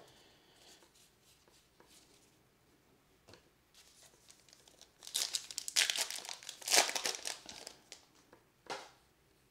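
Faint handling of a stack of trading cards, then about five seconds in a card pack's wrapper crinkles and tears for about three seconds, with one more short crinkle near the end.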